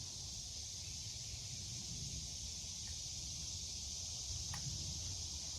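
Steady outdoor insect chorus, a continuous high hiss-like drone, over a low rumble, with a couple of faint ticks.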